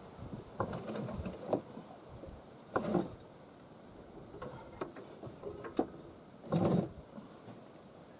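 Mower deck being slid out from under a John Deere Z345M zero-turn: scattered light knocks and clicks, with two louder scraping noises, about three seconds in and again near seven seconds.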